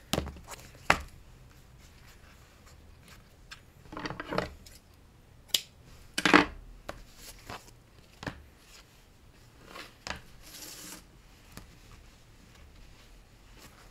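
Paper and twine being handled as the binding threads are tied together on a handmade paper journal: scattered rustles, taps and a few sharp clicks, the loudest about six seconds in, with a longer rustle near the end.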